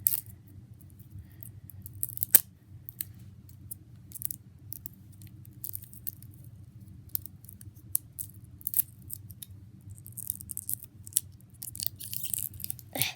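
Irregular small clicks and snaps of a plastic putty container's lid being pried at, with one sharper snap about two seconds in and quicker clicking near the end, over a steady low background hum.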